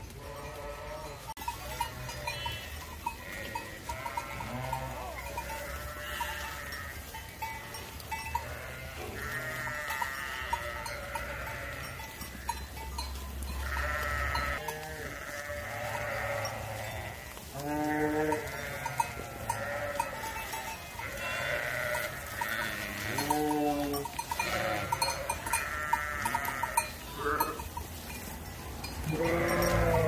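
A flock of sheep bleating, many calls overlapping one another, with louder bleats about 18 and 23 seconds in and again at the very end.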